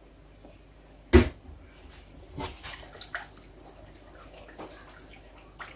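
A glass jar set down on a kitchen worktop with one sharp knock, followed by a few lighter knocks and clinks as a metal cooking pot is handled.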